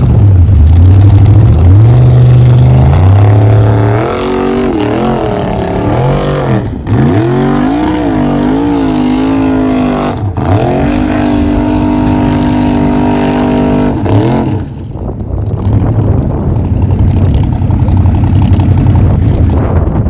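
Formula offroad race truck's engine revving hard: low and uneven at first, then climbing and wavering in pitch, held high and steady for a few seconds, before dropping off sharply about fourteen seconds in and running lower after.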